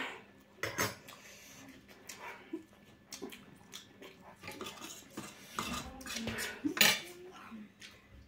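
Metal cutlery clinking against a serving tray and a steel bowl: several separate sharp clinks, the loudest near the end, with a few short hums in between.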